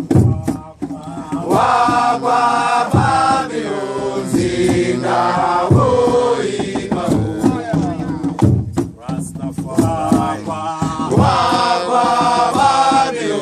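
A group of voices chanting a song together in long held notes, over a low, heavy beat about every second and a half.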